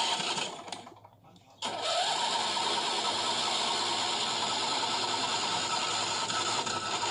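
A 2006 Huskee lawn tractor being started with the key: after a short pause, the starter cranks the engine with a rising whir about a second and a half in, then runs steadily for several seconds while the key is held.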